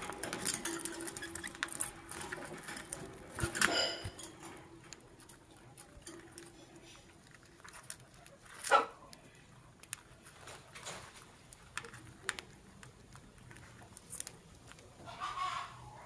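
Lovebirds giving scattered short, sharp chirps and squawks, the loudest a little under nine seconds in, with light clicking and pattering between the calls.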